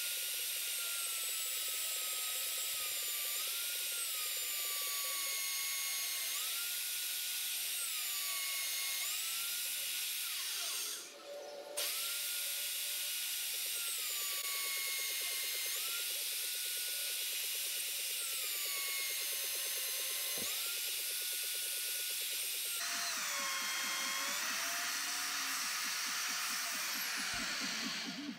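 Magnetic drill with an annular cutter boring through steel plate: a steady electric motor whine that drops in pitch and recovers every couple of seconds as the cutter is fed into the steel. The drill stops for about a second around 11 seconds in, restarts, and stops again near the end.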